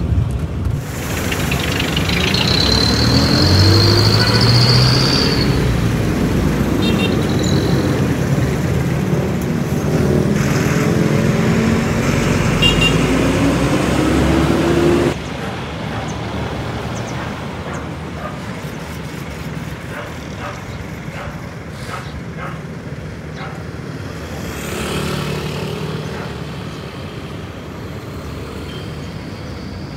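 Road traffic, with a vehicle engine rising in pitch twice as it speeds up and a brief high squeal a few seconds in. About halfway through the sound drops suddenly to a quieter, steady traffic noise.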